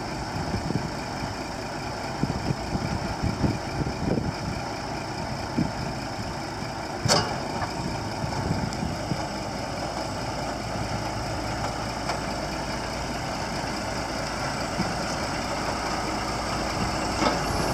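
Scania R480 truck's diesel engine idling steadily, with a single sharp click about seven seconds in.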